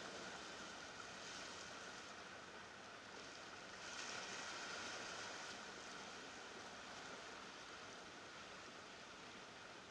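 Faint, steady wash of ocean surf against shoreline rocks, swelling a little about four seconds in.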